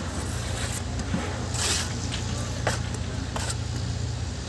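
Steady low engine hum from machinery on the building site, with a few short scrapes and taps of a mason's trowel working mortar on concrete blocks.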